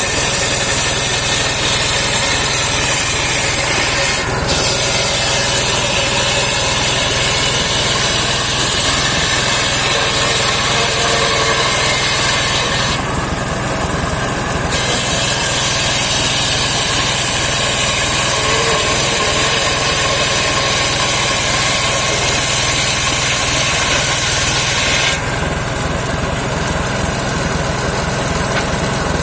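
Engine-driven homemade circular sawmill running steadily while its blade saws saman (rain tree) timber. A high hissing cutting sound drops out twice, about 13 seconds in and again near the end, while the engine keeps running.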